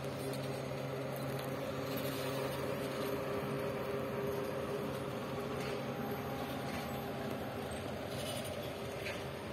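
Long-distance passenger train coaches rolling past a platform, with a steady rumble and hum.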